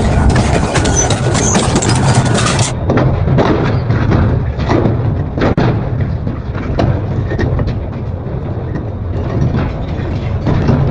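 Industrial double-shaft shredder running with a steady low hum, its cutters cracking and crunching through material in repeated sharp impacts. The sound changes abruptly about three seconds in, as at a cut to another shot of the shredding.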